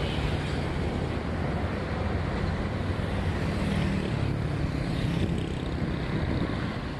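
Motorbike riding at steady speed: a steady low engine hum under an even rush of wind and road noise.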